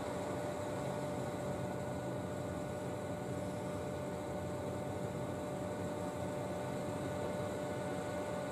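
Steady electrical hum and whine with a constant hiss from stationary electric trains' onboard equipment, running without change.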